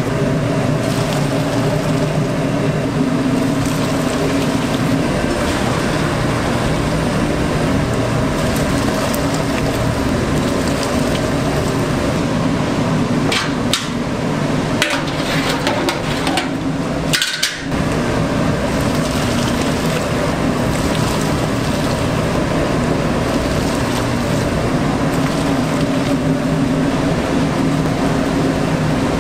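Commercial kitchen noise: a steady hum of equipment under frequent knocks and clatter, with a brief drop-out a little past halfway.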